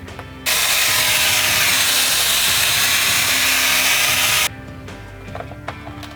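Hair dryer switched on about half a second in, blowing with a loud, steady rush of air for about four seconds, then cut off abruptly. Quiet background music plays underneath.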